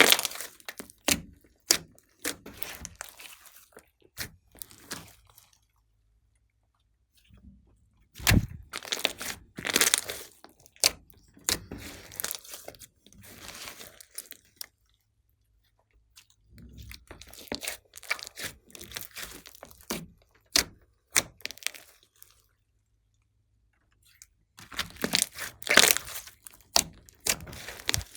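Glossy slime being squeezed and worked by hand: dense runs of sharp, sticky clicks and crackles in three spells, with silent pauses between them.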